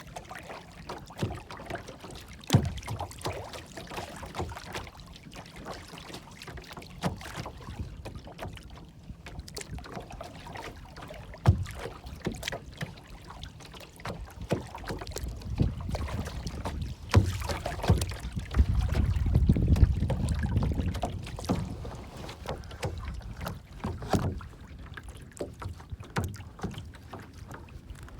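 Water lapping and splashing in many short irregular slaps, over low wind rumble on the microphone that swells in a gust about two-thirds of the way through.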